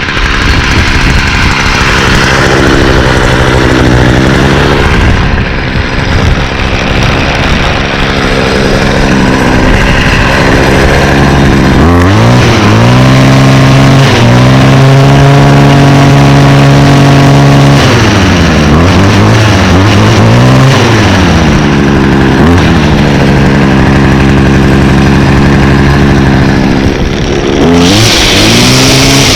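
Stihl FS56 string trimmer's small two-stroke engine running after its first start of the season, unsteady at low speed at first, then revved up and held at high speed for several seconds, dropping back and revving up again twice.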